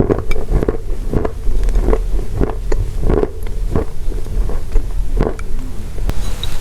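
Pressed chalk or clay tiles crunching close to the microphone: about a dozen dry, crumbly crunches, two or three a second, over a low rumble.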